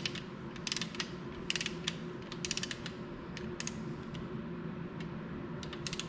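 Torque wrench ratcheting a connecting rod cap bolt down on a 5.7L Chrysler Hemi: short runs of quick pawl clicks with pauses between them, as the bolt is brought up to its first torque stage of 15 foot-pounds.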